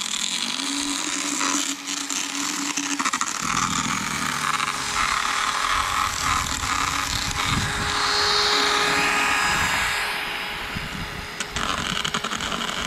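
Motorized equine dental float running against a horse's teeth, a steady drill-like whir with a grinding rasp as the teeth are filed down.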